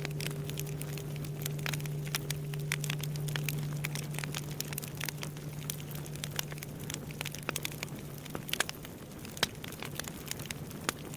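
Wood bonfire crackling with frequent sharp pops, over the low hum of a large Buddhist temple bell (bonshō) dying away from its last strike; the hum fades out about two-thirds of the way through.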